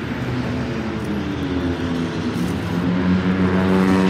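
A city bus engine runs as the bus passes close by, with street traffic noise behind it. A low engine hum rises in pitch about halfway through and grows louder toward the end.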